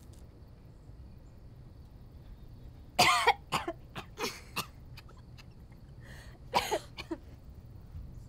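A young woman coughing on her first drag of a cigarette, the smoke catching in her throat. There is one loud cough about three seconds in, then four quick shorter ones, and a second fit of two or three coughs near the end.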